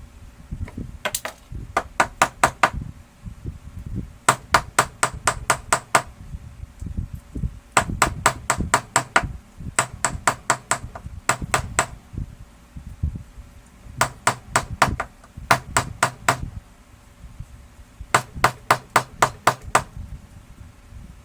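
Repeated bursts of sharp, rapid taps, several a second in runs of about a second, with low handling noise between the bursts.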